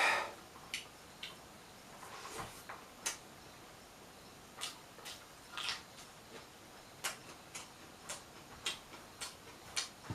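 Close-up eating sounds: chewing, with irregular wet mouth clicks and smacks about once or twice a second.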